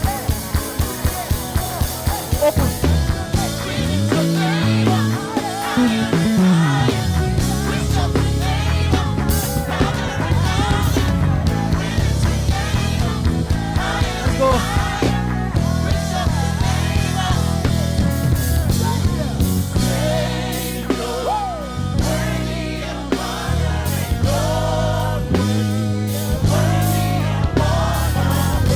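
Live church praise band playing an up-tempo gospel number: drum kit, bass guitar and guitar, with singing.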